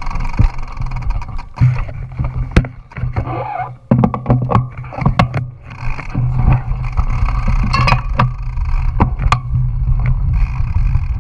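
Mountain bike rolling fast over a dirt trail: wind buffeting the action camera's microphone and tyre rumble, broken by many sharp rattles and knocks from the bike over bumps.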